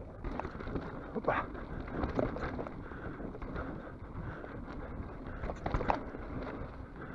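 Mountain bike rolling over a dirt trail: steady tyre and wind noise with irregular knocks and rattles from the bike over bumps.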